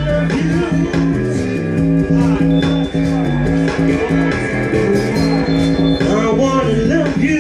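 Loud dub reggae music played through a sound system: a heavy bassline with guitar over it, and a voice coming and going near the start and end.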